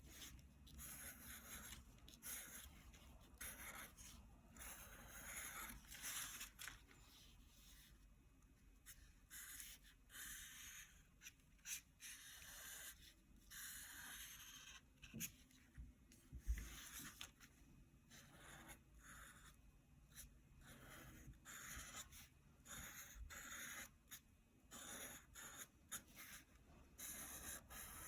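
Marker pen stroking on paper: faint, short, irregular scratching strokes with pauses between them. A single soft thump about halfway through is the loudest sound.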